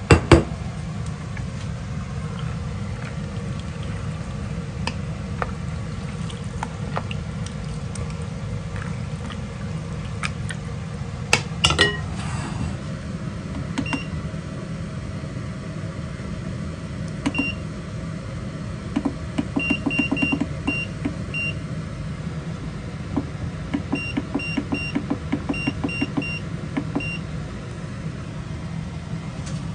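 Cuisinart programmable slow cooker's control panel giving short high beeps as its buttons are pressed to set it to low for nine hours: single beeps at first, then quick runs of beeps with button clicks. A steady low hum runs underneath, with a clatter at the start and another about twelve seconds in.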